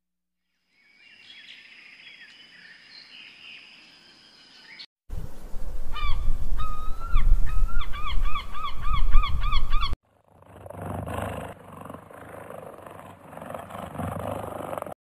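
Repeated bird calls over low wind rumble, coming faster near the end to about four calls a second. This loud middle stretch sits between a faint opening with a thin high steady tone and a quieter outdoor background after a sudden cut.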